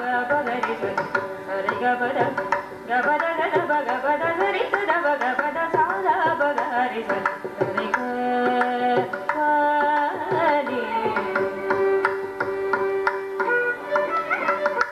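Live Carnatic music: a female voice and violin trace an ornamented melody over mridangam strokes. Some notes are held in the middle, and one slides down about ten seconds in.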